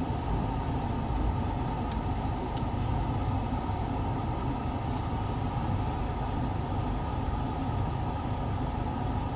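Steady low rumbling noise outdoors at night, with faint insect chirps repeating about twice a second high above it.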